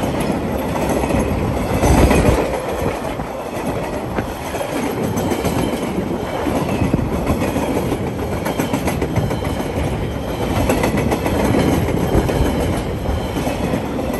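Empty log wagons of a KiwiRail freight train rolling past, their wheels clattering over the rail joints in a steady rumble, loudest about two seconds in; the last wagon goes by near the end.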